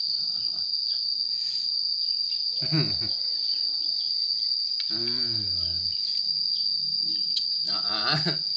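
An insect calling with one steady, unbroken high-pitched buzz, the loudest sound throughout, with faint short human vocal sounds about three seconds in and again around five seconds in.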